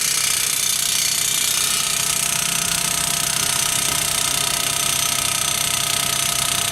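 Powered fence-post driver hammering a post into the ground: rapid, continuous pounding with a motor running under it.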